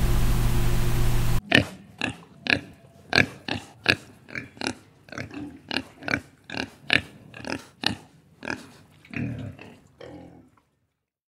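Piglets squealing in a quick series of short, sharp calls, about two to three a second, that stop near the end. Before them is a brief steady noisy hum.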